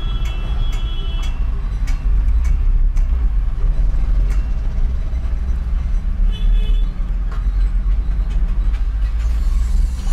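Steady low rumble with scattered light clicks and rustles of copper wires being twisted together by hand.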